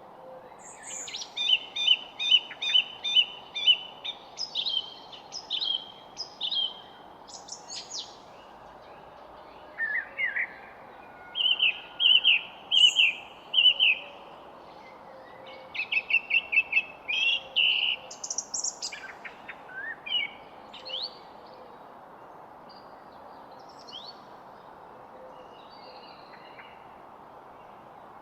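Songbirds singing in a garden: bursts of rapid, repeated high chirps and short trills, with phrases changing every few seconds over a steady background hiss. The song thins to a few scattered notes after about twenty seconds.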